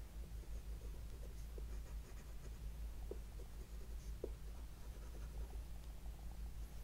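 Faint scratching as the tip of a wooden paintbrush handle scrapes lines through a layer of black oil pastel on paper (sgraffito), in a few light strokes over a steady low hum.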